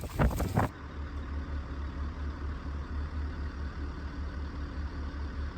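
Wind buffeting the microphone for under a second, then a cut to a vehicle engine idling, a steady low rumble with an even pulse.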